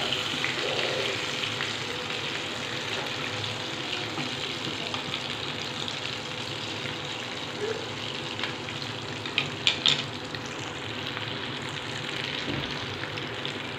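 Batter-dipped potato pinwheels frying in hot oil in a pan, a steady sizzle with bubbling as they fry toward golden brown. Wooden spatulas stir and turn them in the first second or so, and a few sharp clicks come about nine and a half seconds in.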